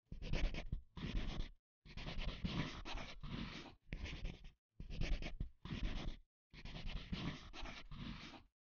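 Pencil scratching across paper in a run of writing strokes, each lasting from about half a second to two seconds, with short silent gaps between them.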